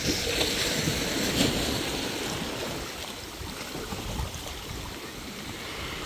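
Sea waves breaking and washing, swelling over the first second or two and then slowly easing, with wind on the microphone.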